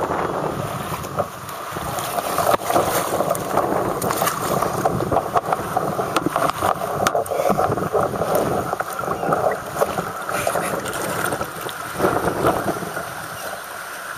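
Choppy river water sloshing and splashing around a paddler in the water beside a capsized kayak, with gusty wind buffeting the camera's wet microphone.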